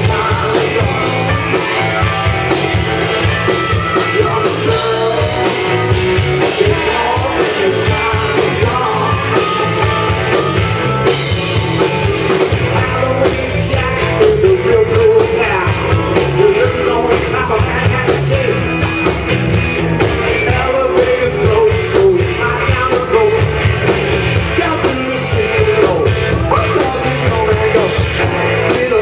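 Live rock band playing full out: electric guitars, bass guitar and drum kit keeping a steady driving beat under a lead vocal.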